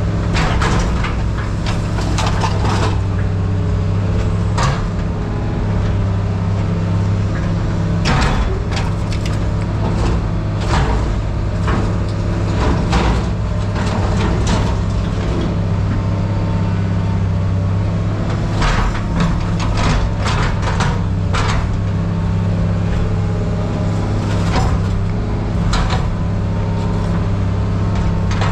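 Heavy scrap-handling machine's engine running steadily, heard from inside its cab, with several bursts of clanking and rattling from metal scrap being moved.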